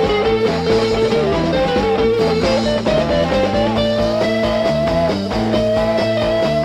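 Late-1960s psychedelic rock instrumental break: an electric lead guitar plays long held notes that bend slowly upward, over bass and the rest of the band.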